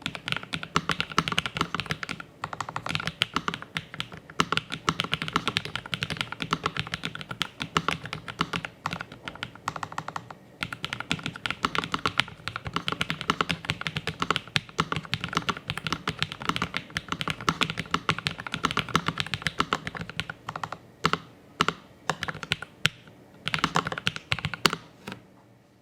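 Typing on a Lofree Flow Lite low-profile mechanical keyboard: a fast, dense run of key clicks with a couple of short pauses, thinning to a few separate keystrokes near the end.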